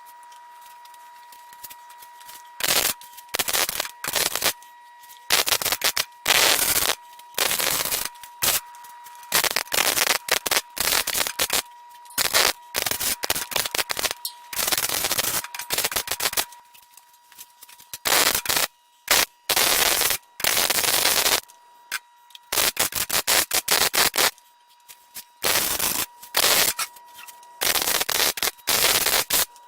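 Wire-feed (MIG) welder arc crackling in a series of short welds, each run lasting from about half a second to two seconds with brief pauses between them, as stands of a steel rack are welded up. A faint steady whine sits underneath.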